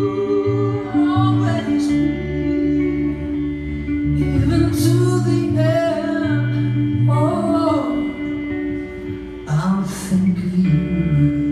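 Live song: a man singing into a microphone over guitar, with sustained low notes underneath.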